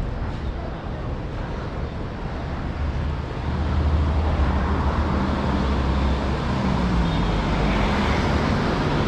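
City street traffic with a motor vehicle's engine running close by; the low engine hum grows louder about three and a half seconds in and stays steady.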